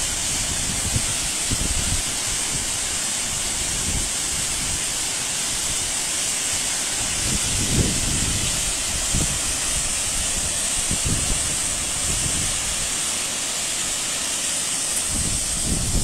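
Steady rushing of the Ouzoud waterfalls, with wind buffeting the microphone in irregular low thumps.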